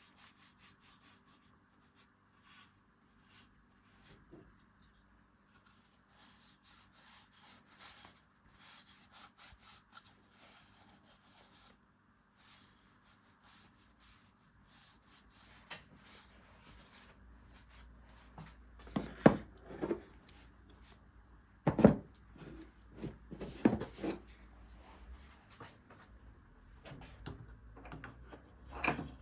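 Hand work on a beech wood carving: a faint scraping and rubbing of tool on wood, then several loud wooden knocks in the second half, the last near the end.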